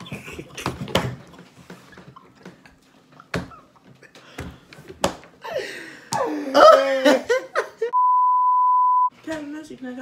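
Young men laughing and talking excitedly, with scattered knocks, then a steady high censor bleep about a second long near the end that covers a spoken word.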